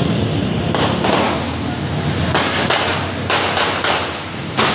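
Scattered gunshots in an ongoing shootout: several sharp reports at irregular intervals over a steady noise of the street.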